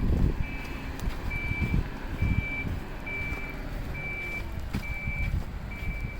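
A vehicle's reversing alarm beeping steadily, one high-pitched beep about every second, over a low engine rumble.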